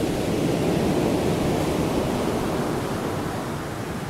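Ocean surf washing against a rocky shore: a steady rushing noise that eases off slightly toward the end.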